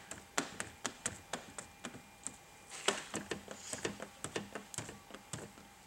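A squeegee pressed and drawn over wet window tint film on a car door's glass, pushing the water out from under the film: a run of irregular sharp ticks and clicks, two or three a second, with a couple of short scraping swishes.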